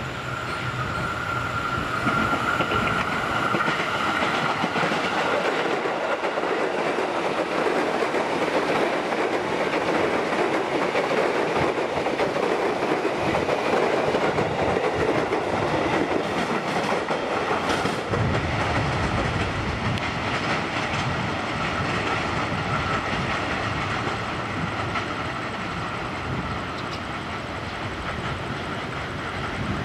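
KRL Commuterline electric commuter train passing at speed on the main line, a dense rolling rumble of wheels on rail. A steady high whine is strongest in the first few seconds, and the sound eases a little near the end as the train draws away.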